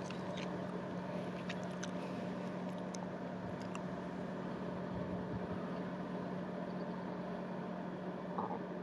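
Small car ferry's engine running steadily at a distance, a constant low hum over an even wash of noise, with a few faint clicks in the first few seconds.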